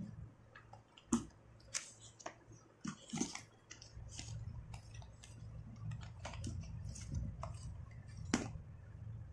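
Paper and cardboard being handled: a printed manual and the packaging of a gimbal's retail box rustling, with scattered light knocks and clicks, the sharpest about a second in and near the end. A low steady hum underneath.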